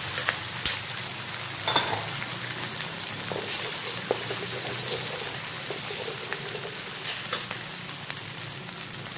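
Eggs frying and sizzling in a metal wok with sliced onions, a steady hiss. A few sharp clicks and scrapes of a metal spatula against the wok come through as the yolks are broken and stirred, the loudest about two seconds in.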